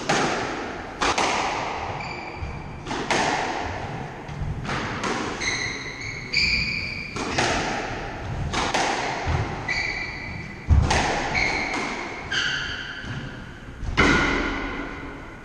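Squash rally: the ball cracking off the racket strings and smacking the front and side walls, a sharp hit every second or so, each with a ringing echo in the court. Between the hits, short high squeaks of court shoes on the wooden floor as the players lunge and turn.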